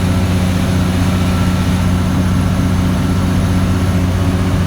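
Kenworth T800 truck's diesel engine running steadily under way, a constant low drone.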